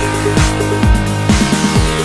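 Electronic background music with a steady beat of deep kick drums, about two a second, over held synth notes.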